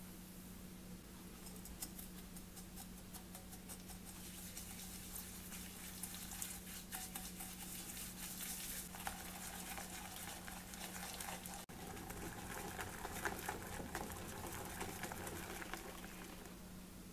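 A whisk beating egg yolks and granulated sugar in a glass bowl: a fast run of soft clicks and scraping that fades out near the end. A steady low hum runs underneath.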